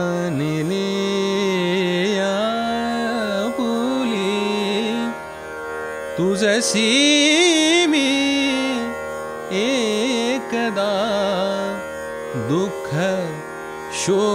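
A singer performing a Marathi natya sangeet (stage song) passage: long ornamented phrases with no clear words that glide and turn in pitch, over a steady drone. A new, louder phrase starts about six seconds in.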